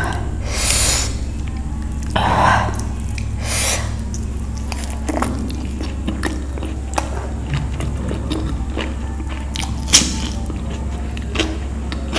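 Close-miked eating by hand: fingers squishing rice and curry on a steel plate, giving a few short wet smears early on, then a mouthful being chewed with small wet smacks and clicks and one sharper smack about ten seconds in. A steady low hum runs underneath.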